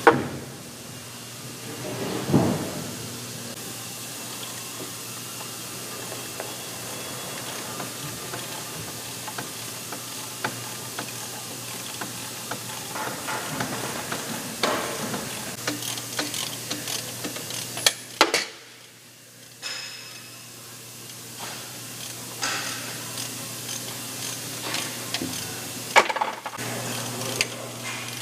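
Hand tools clicking and clinking against the metal fittings of a propeller hub as it is bolted on, in scattered irregular strokes with a few louder knocks, over a steady low hum.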